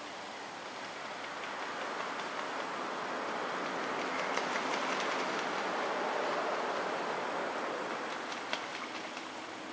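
A vehicle passing by: a rush of road noise that swells to a peak midway and fades again, over a high, pulsing insect chorus.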